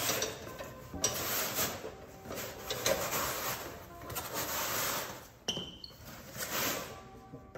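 Cloth rubbing and rustling in repeated swells, as a pair of pants is pulled on over a foam-padded leg.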